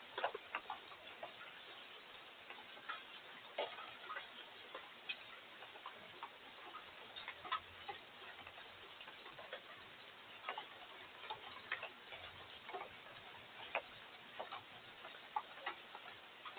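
Scattered raindrops or drips ticking irregularly on a hard surface, several sharp ticks a second at uneven spacing, over a faint steady hiss.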